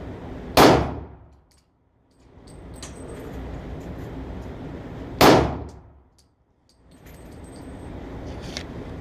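Two gunshots from a .44-calibre firearm loaded with buckshot, about four and a half seconds apart, each a sharp crack over steady background noise; the sound drops out for about a second after each shot.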